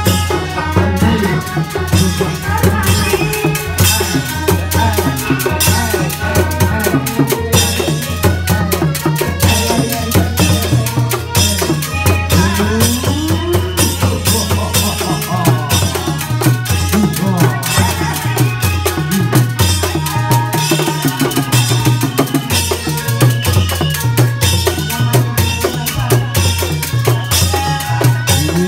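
Traditional Indramayu reog percussion music: drums beating a steady, fast rhythm with rattling percussion over it. A pitch slides upward about twelve seconds in and again at the end.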